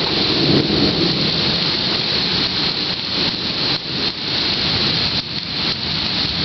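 Heavy thunderstorm rain pouring down in a dense, steady hiss, with a low rumble in the first second.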